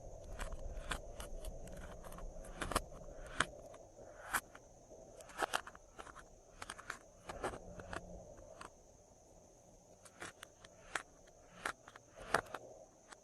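Glossy slime being kneaded and squished by hand, giving off irregular sticky clicks and wet pops.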